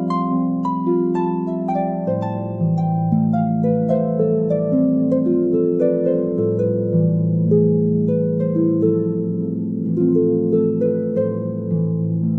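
Background music: a slow melody of plucked notes over long held lower notes.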